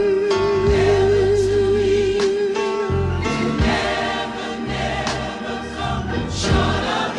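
Gospel music with a choir singing over instrumental backing; a long held note with vibrato gives way to new chords about three seconds in.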